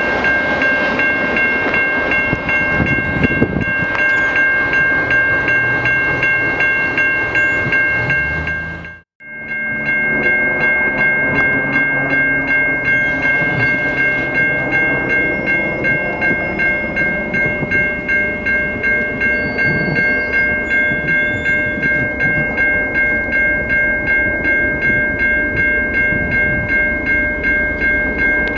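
Railroad grade-crossing bell ringing in a fast, even pulse over the low rumble of a freight train on the tracks. The sound cuts out briefly about nine seconds in, then the bell resumes.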